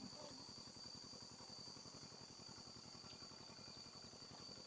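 Insects trilling steadily in a faint continuous chorus, with a faint fast low pulsing underneath.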